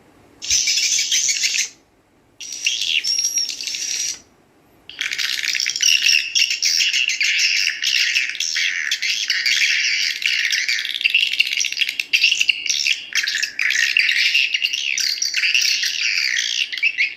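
Recorded swiftlet calls played back as a 3D-edited lure sound for a swiftlet house, several different swiftlet chirp tracks layered and running together into a dense, busy twittering. It starts, breaks off twice in the first few seconds as tracks are switched, then plays on without a break.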